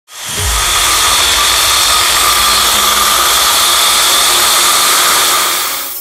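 ES Industry dry core drill with a diamond core bit boring into a concrete block: a loud, steady motor whine over grinding noise. It starts abruptly and fades out near the end.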